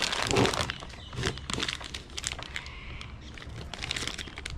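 Crinkling plastic packaging and small plastic parts clicking and knocking as pieces of a dent repair kit are handled.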